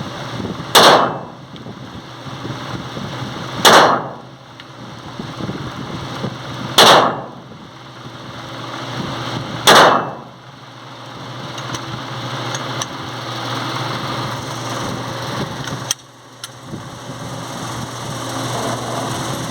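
Four pistol shots from a Glock in .380, about three seconds apart, each with a short echoing tail. A steady low hum runs underneath.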